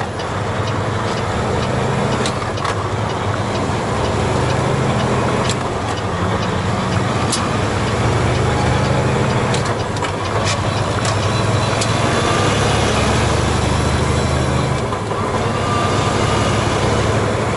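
Semi-truck's diesel engine running while the truck drives, heard inside the cab. Its low drone steps in pitch a few times, over road noise.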